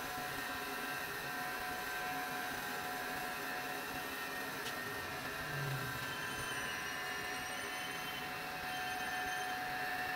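Crankshaft grinding machine running with a steady mechanical hum and whine, with a single sharp click about halfway through.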